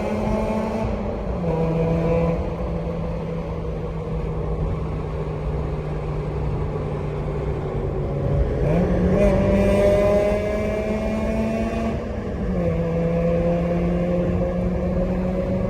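Early Mazda RX-8's twin-rotor 13B rotary engine through an R-magic tuned silencer, SARD catalytic converter and Maxim exhaust manifold, pulling through a tunnel. The revs climb slowly, drop suddenly at gear changes about a second and a half in and again near the end, and jump up once about nine seconds in.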